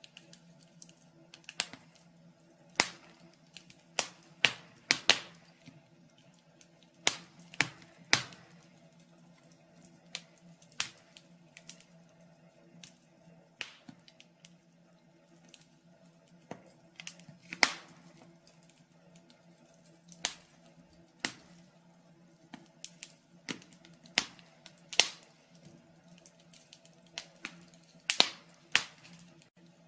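Wood fire in a fireplace crackling, with irregular sharp pops and snaps, some much louder than others, over a faint steady low hum.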